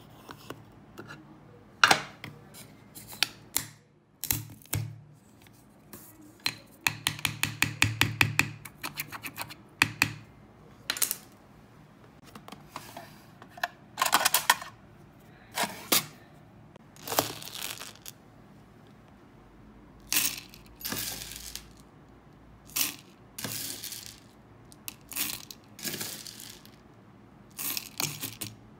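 Handling sounds while setting up a wax warmer: metal measuring spoons clinking and hard-wax beads rattling against the warmer's metal pot. A string of separate clinks and short rattles, with a quick rattling run about a quarter of the way in.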